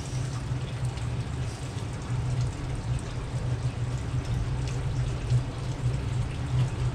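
Aquarium filters and pumps running: a steady low hum with trickling, splashing water.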